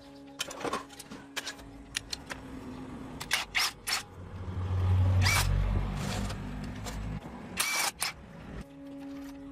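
Workshop clatter: a series of sharp metallic clinks and knocks, several ringing briefly, with a low rumble for a couple of seconds in the middle.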